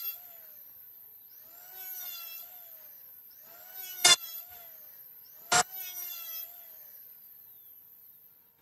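Electric hand planer run in several short bursts on hardwood, its motor whine rising and then falling away each time, with loud sharp knocks about 4 and 5.5 seconds in.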